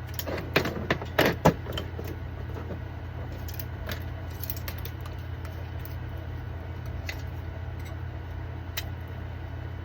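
Small 3D-printed plastic parts clicking and clattering as they are handled and pressed together, with a cluster of sharp clicks from about half a second to a second and a half in, then a few faint ticks. A steady low hum sits underneath.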